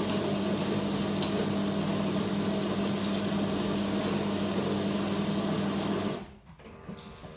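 Bosch VeroCafe TES50129RW bean-to-cup coffee machine's built-in grinder grinding coffee beans: a loud, steady whirring grind over a low hum, which cuts off suddenly about six seconds in.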